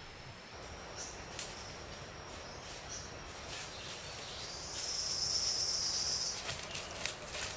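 Insect trilling on one high pitch: faint at first, then swelling into a louder buzz for about a second and a half past the middle before dropping back. A few light taps and clicks sound in between.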